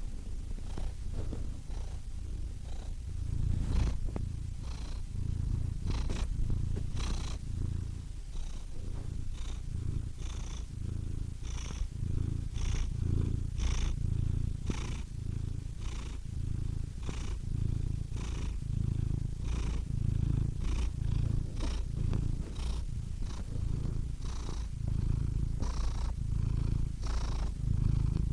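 Domestic cat purring: a continuous low rumble that swells and eases about once a second with each breath in and out.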